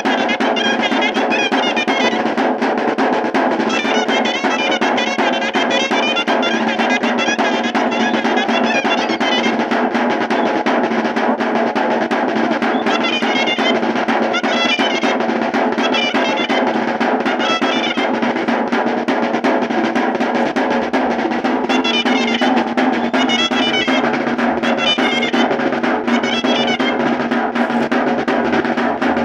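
Chirimía, a shrill double-reed shawm, playing an ornamented melody over a caja drum beaten in fast, continuous rolls.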